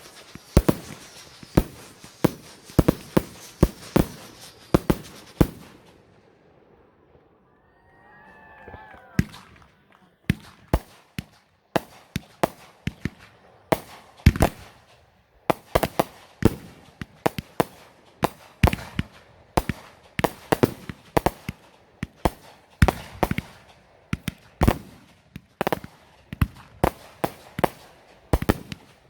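Fireworks going off in a rapid volley of sharp bangs, about two or three a second. The bangs pause for a few seconds about six seconds in, then resume just as thick to the end.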